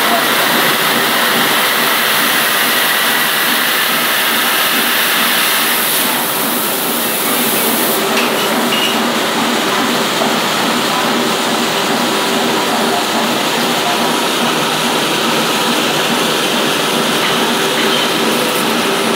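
Aulto three-brush floor scrubber running on a concrete floor: a steady electric-motor hum under the hiss of the brushes scrubbing. The highest part of the hiss eases a little about eight seconds in.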